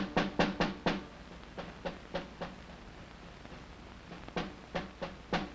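Small toy drum beaten in a quick even rhythm, about four strokes a second, dying away about a second in; a few softer, sparser strokes follow later.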